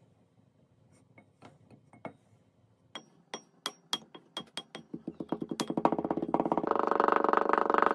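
Green sand pieces being crushed and packed down by a wooden pestle inside a tall glass: a few faint clicks, then sharp crackling clicks from about three seconds in that quicken into a dense, fast rattling crackle near the end.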